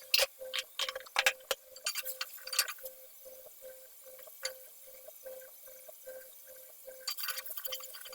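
A cooking utensil clinking and clattering against a pan in quick bursts during stir-frying of chayote, quieter in the middle and busy again near the end.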